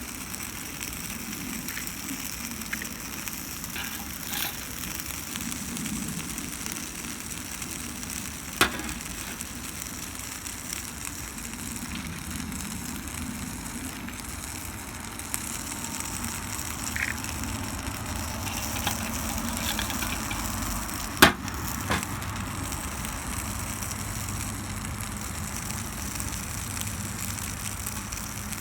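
Wood-pellet fire burning in a Solo Stove: a steady hiss with a few sharp pops, the loudest about two-thirds of the way through.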